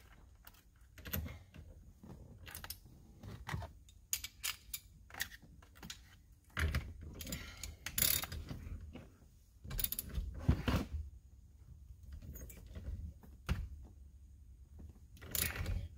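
Hand ratchet clicking in irregular runs as the steering-wheel retaining nut is run down and tightened on the steering shaft, with scattered knocks and clinks of the tool and parts.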